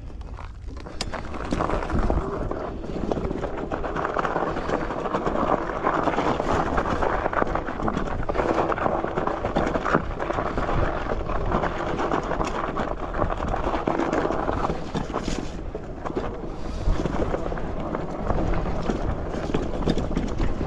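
An e-bike rolling over a rough dirt and snow trail: steady tyre rumble with frequent knocks and rattles from bumps. It gets louder about a second and a half in and eases off around three-quarters of the way through.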